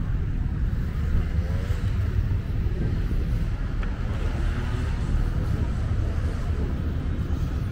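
Outdoor ambience of a busy open square, dominated by wind buffeting the microphone as a steady, uneven low rumble. Faint voices of people nearby come through underneath.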